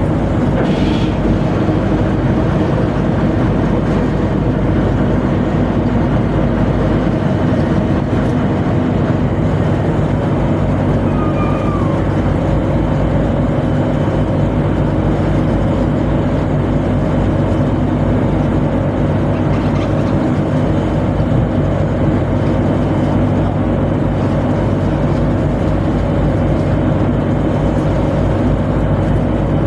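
Tugboat's diesel engines running with a steady, loud drone and a constant hum.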